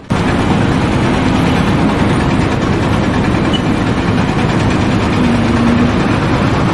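Loud, steady running of a heavy engine, starting suddenly.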